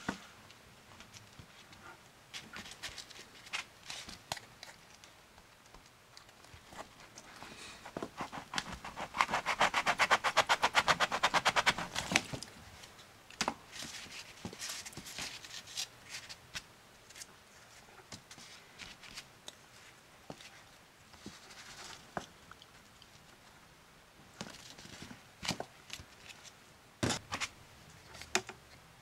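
Plastic bread cutter and a slice of white bread handled on a table: scattered light clicks and taps of the plastic, and the rustle of crust being pulled and torn away. Near a third of the way in comes a louder run of rapid crackling lasting a few seconds.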